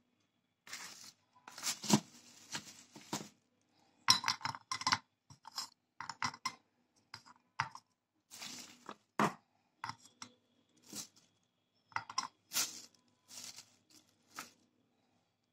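Hard white sticks being dropped one by one into a terracotta clay cup. They make a series of short clinks and scrapes against the clay and against each other.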